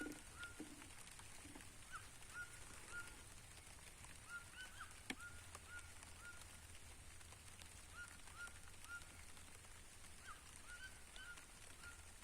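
Birds calling: many short notes with a quick hook in pitch, repeated irregularly throughout, over a faint steady high hiss.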